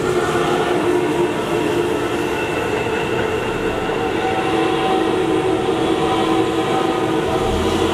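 Seibu Ikebukuro Line electric train running past, a continuous rail noise with several steady tones over it. A new pair of tones sets in about four seconds in.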